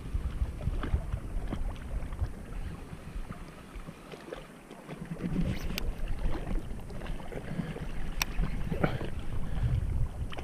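Wind buffeting the microphone as a low rumble, easing for a moment in the middle, with a few sharp clicks later on.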